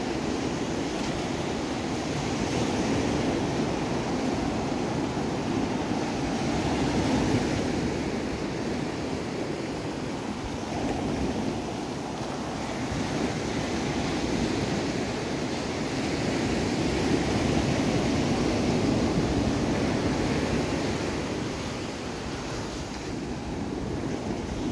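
Ocean surf breaking and washing up a beach, a steady rush that swells and eases over several seconds, with some wind rumble on the microphone.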